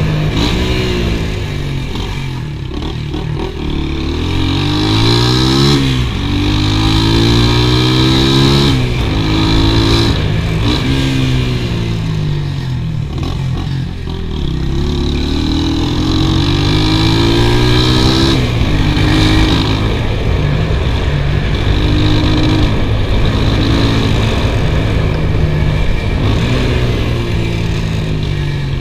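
A small motorcycle's engine under way, its pitch climbing as it pulls through each gear and dropping at each shift, over and over.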